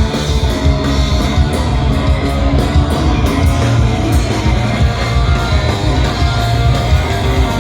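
Punk rock band playing live, an instrumental passage without vocals: loud guitar over steady driving drums.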